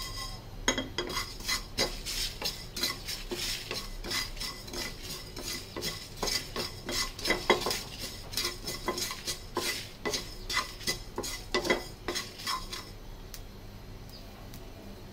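A spatula stirring and scraping whole panch phoron seeds and dried red chillies around a dry non-stick frying pan, in quick repeated strokes. The seeds crackle as they toast. The stirring stops about 13 seconds in, leaving only a faint sizzle.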